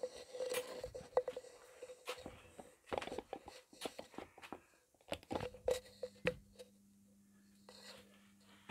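Fluorescent tube starting on a conventional magnetic ballast with a glow starter: irregular clicking and ticking for about five seconds while it tries to strike. Then the tube lights and a steady low mains hum from the ballast sets in.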